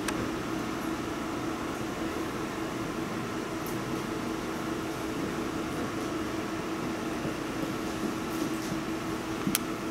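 Steady mechanical hum with a constant low tone, and one sharp click near the end.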